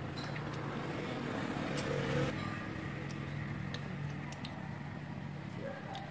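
Steady low rumble of a motor vehicle engine, swelling slightly about two seconds in, with a few faint clicks scattered through it.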